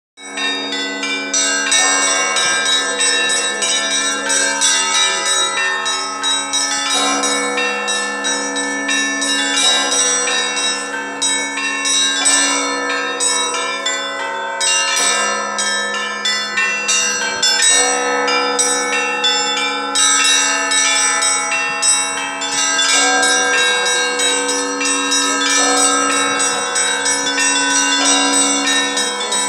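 Russian Orthodox church bells rung by hand in a belfry: several bells of different pitches struck in a fast, continuous pattern, with the lower bells sounding steadily beneath the rapid strokes of the small ones.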